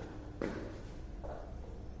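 A person's sudden breathy burst through the nose, brought on by a sutra neti thread tickling the nostril, then a shorter, fainter breathy sound about a second later.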